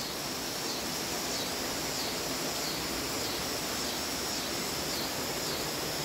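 Steady rain falling, with cicadas droning in a high band that wavers and dips now and then.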